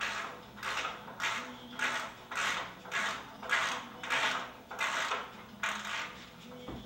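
A socket ratchet wrench turning a bed-rail bolt into a wooden bed post, giving a short burst of ratchet clicks on each swing, about two strokes a second.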